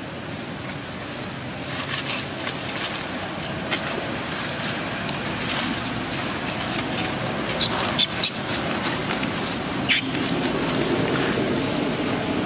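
Long-tailed macaques scuffling and shifting in dry leaves, with scattered rustles and clicks over a steady background rumble, and a few short, sharp high sounds about eight and ten seconds in.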